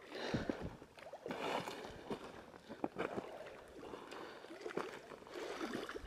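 Footsteps over rocky ground with scattered knocks and clinks of a rod pod being carried and handled.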